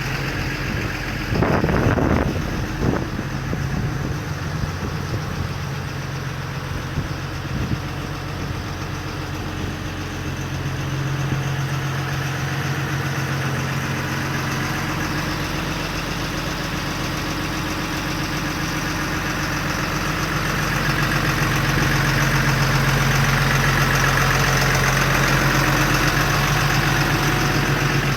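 A MAN 6x4 concrete mixer truck's diesel engine idling steadily, with a short clatter of knocks about two seconds in. The engine noise grows somewhat louder after about twenty seconds.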